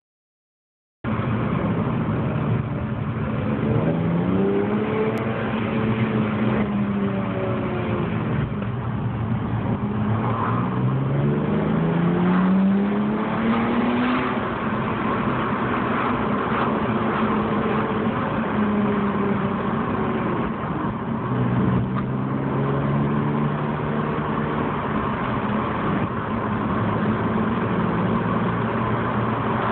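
BMW 325Ci straight-six engine with headers and a Dinan cold air intake, heard from inside the cabin while driving. After about a second of silence it revs up through the gears several times, the pitch climbing with each pull, then holds a steady cruising note near the end.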